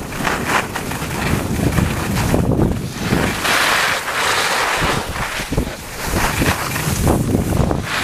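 Wind buffeting the microphone of a camera moving fast downhill, with the hiss and scrape of snowboard and ski edges carving on packed snow, swelling and fading in surges every second or two.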